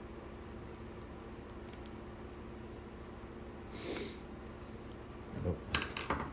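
Small clicks and light knocks from handling a plastic plug and screwdriver while fitting cord wires to the plug's terminal screws, clustered near the end, over quiet room tone, with a short hiss about four seconds in.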